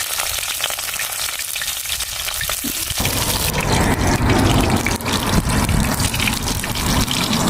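Fatty pork and ginger frying in a hot pot, sizzling as they are stirred, with small scraping clicks of the utensil. The sizzle gets fuller about three seconds in.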